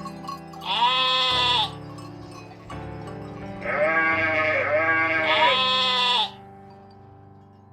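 Sheep bleating: one bleat about a second in, then three bleats in quick succession, over steady background music.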